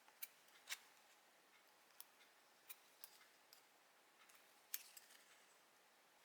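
Faint, scattered snips of small scissors cutting paper or stickers, about half a dozen sharp clicks over several seconds with near silence between them.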